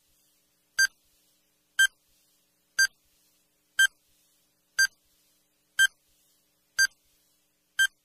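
Countdown timer beeping: short, identical electronic beeps once a second, eight in all, ticking off the seconds of a countdown.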